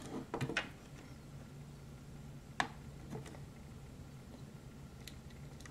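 A few faint, small clicks and taps from handling a scale model car and its wheel-nut wrench: a cluster about half a second in and one sharper click in the middle, over a faint steady hum.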